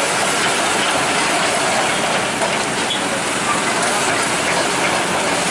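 Kobelco crawler excavator travelling on its steel tracks: a steady, dense clatter of track links and rollers.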